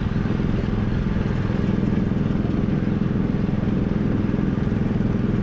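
Small petrol engine of a go-kart-style amusement-ride car running steadily as the car drives along its track, heard from the driver's seat.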